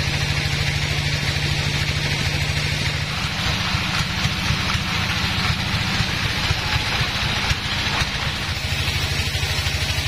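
Sawmill band saw running and cutting through a log: a steady low throbbing drone from the machine, with the hiss of the blade in the wood. The low drone shifts about three seconds in and settles back near the end.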